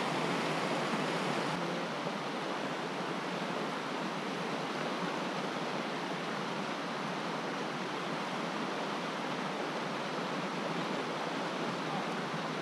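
Mountain creek water rushing over stones: a steady, even rush with no breaks.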